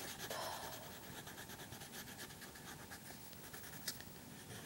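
Quiet, rapid colouring strokes scratching back and forth on a paper colouring page, with one small tap about four seconds in.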